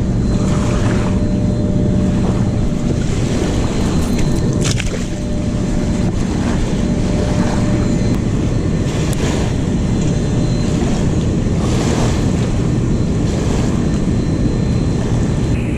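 Steady rush of a fast-flowing river churning against the bank, with wind noise on the microphone.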